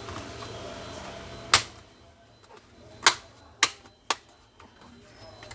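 Laptop keys being pressed: four sharp clicks, about a second and a half, three, three and a half and four seconds in, as the newly refitted keyboard is tested. A steady background hiss drops away after about a second and a half.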